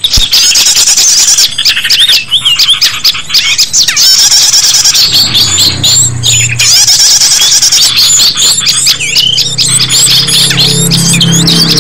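A bird-lure recording of many small birds chirping and squeaking over one another in a dense, rapid, high-pitched chatter. It is loud throughout, with a low hum coming in under it about halfway through.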